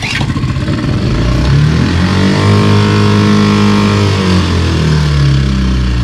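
Tohatsu SailPro 6 hp four-stroke outboard motor coming to life at the start, its pitch rising over the first two seconds, holding, then dropping back about five seconds in. The engine will not stay at idle, which the owner puts down to a fuel delivery problem.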